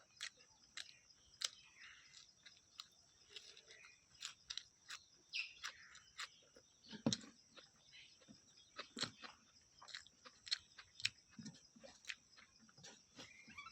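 A person chewing food with many irregular wet mouth clicks and smacks, several a second, and a few heavier bites about halfway through.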